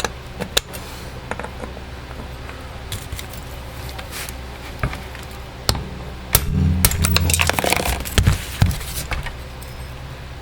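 Hammer on a punch tapping at the clutch of a Husqvarna 120 Mark II chainsaw, which is locked by a piston stop: scattered sharp metallic taps, coming thicker and louder past the middle. The clutch is in tight and does not come loose.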